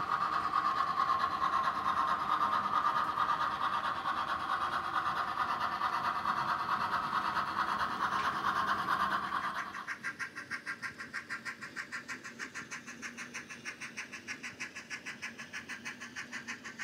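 Model 4-4-0 steam locomotive running along the layout's track with its train of passenger cars. About ten seconds in the sound drops in level and becomes a quick, even pulsing.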